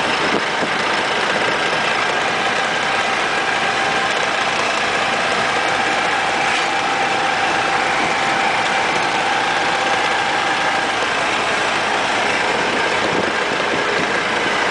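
Old open-topped touring car driving steadily along a road: an even engine drone mixed with tyre and wind noise, heard from inside the car.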